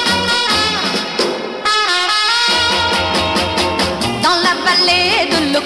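Recorded 1960s French pop music: a trumpet-led band playing over a steady beat, with a singing voice coming in near the end.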